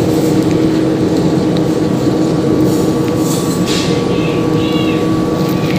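A motor running steadily with a constant hum, loud throughout; a few short high chirps just past the middle.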